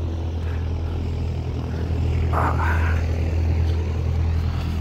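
Steady low drone of a light aircraft's piston engine running, with a short rush of hiss about two and a half seconds in.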